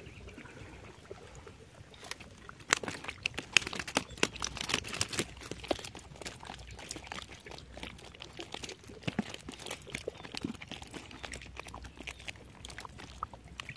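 Irregular crackling and rustling of handling: a wire-mesh fish trap being moved and reached into, on a bed of dry reeds. It begins about two seconds in and is busiest soon after.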